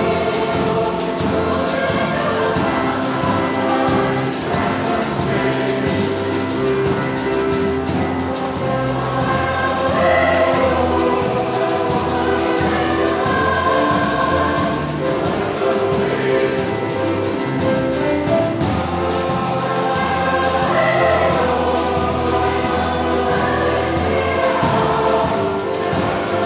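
A choir singing a choral arrangement in parts, with long held notes and chords that shift every few seconds.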